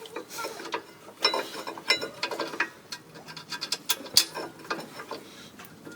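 Metal hand tools clinking and clicking during rear brake caliper work: scattered sharp metallic strikes, some with a brief ring, and a quick run of clicks about two seconds in.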